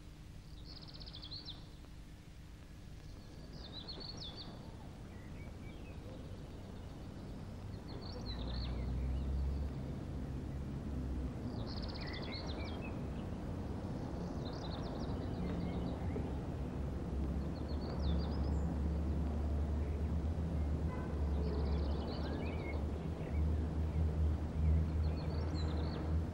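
Short high bird chirps repeating every three seconds or so, over a low droning rumble that swells in about eight seconds in and grows louder.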